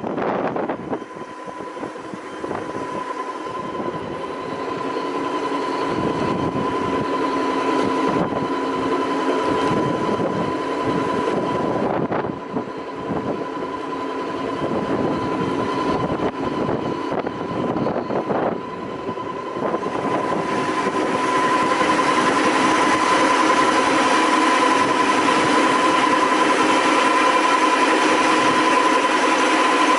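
Brush sanding machine running, its motors and spinning disc and drum brushes making a steady mechanical whir with a constant high whine. It grows louder about two-thirds of the way through.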